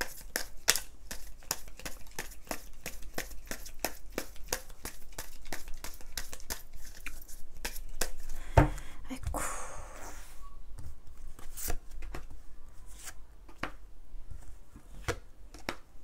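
Tarot cards being shuffled and drawn by hand: a quick run of card clicks and flicks, with a single knock about eight and a half seconds in and a brief swish of cards sliding just after, then sparser clicks.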